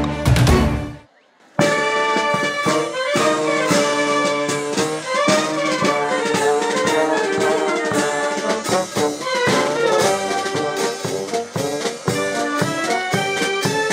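Music led by brass instruments such as trumpets and trombones. The piece before it breaks off about a second in, and after a short pause the brass music starts and plays on.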